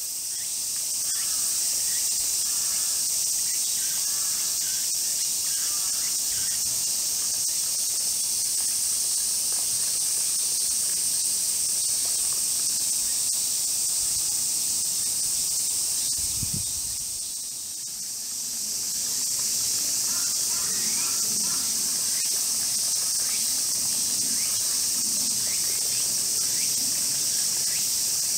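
Steady, high-pitched chorus of summer insects. It fades briefly a little past the middle, then comes back.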